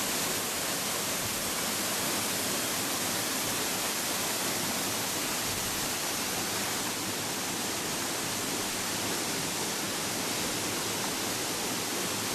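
Waterfall pouring into a rocky pool, a steady rush of falling water that eases slightly about halfway through.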